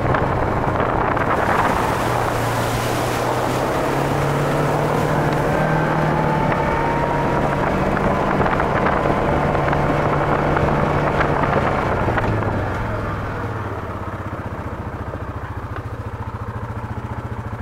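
A vehicle driving along a road: its engine runs steadily under wind and road noise, then eases off about twelve seconds in as it slows.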